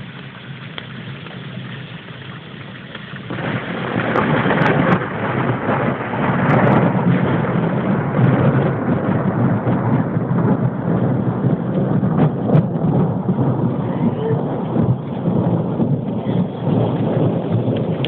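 Thunderstorm: rain with thunder, a loud rumble breaking in suddenly about three seconds in and rolling on without letting up.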